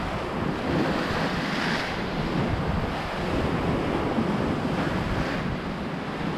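Wind buffeting the microphone over the steady wash of sea surf, with the surf swelling a little about two seconds in and again about five seconds in.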